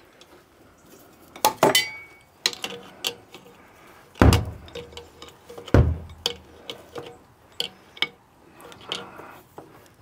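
Metal clinks and knocks from fittings being handled on top of a small riveted vertical boiler, with two heavier knocks about 4 and 6 seconds in.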